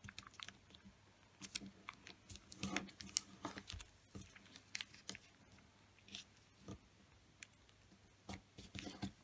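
A sheet of origami paper being folded: faint, scattered crinkles and crackles as its edges are brought to the centre and the creases pressed flat with the fingers.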